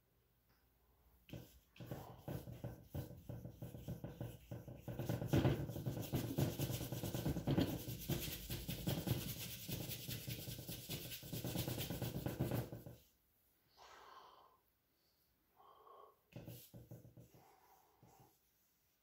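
A large paintbrush scrubbing oil paint onto the painting surface in quick back-and-forth strokes for about ten seconds, then stopping; a few short, lighter strokes follow near the end.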